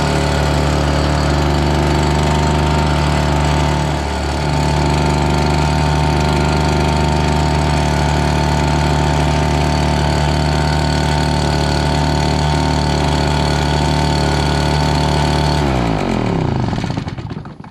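Redmax EBZ7500 leaf blower's two-stroke engine running steadily, then shut off about sixteen seconds in and winding down to a stop over a second or two. It stops because the two ignition kill wires were joined, grounding the coil so there is no spark.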